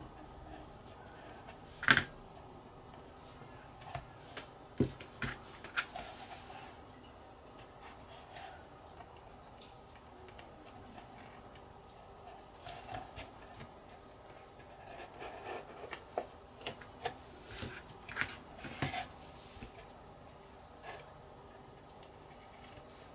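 Tweezers picking and peeling Tamiya masking tape off a plastic model kit hull: scattered small clicks, taps and soft rustles of tape, the loudest a sharp click about two seconds in, with busier spells a few seconds in and again past the middle.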